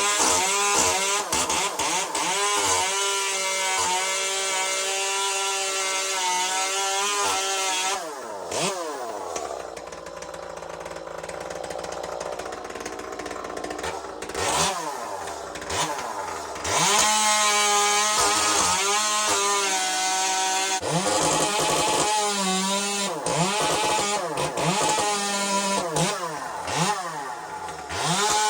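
Echo 2511 small two-stroke top-handle chainsaw running at high revs while cutting wood, its pitch dipping and climbing again several times. About a third of the way in it drops back to a lower, quieter speed for several seconds before revving up again.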